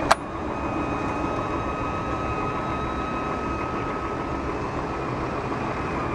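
1963 Ford Falcon Futura's electric power-top motor whining steadily as the convertible top lowers, over the straight-six engine idling. A sharp click comes just at the start, and the whine sags and stops at the very end.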